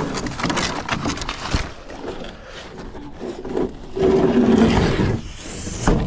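A heavy mud-caked metal bathtub scraping and knocking against a concrete ledge as it is hauled up by hand. The grinding gets louder about four seconds in, and there is a sharp knock near the end.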